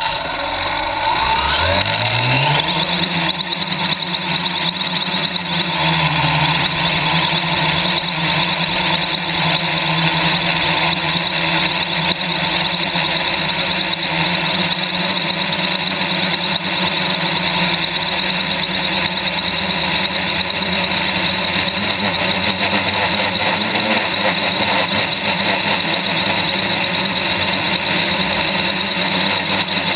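Quadcopter's four brushless motors and propellers starting suddenly and spinning up with a rising whine over the first couple of seconds as it lifts off. It then runs steadily in the climb, heard from on board the frame with a loud rushing of prop wash.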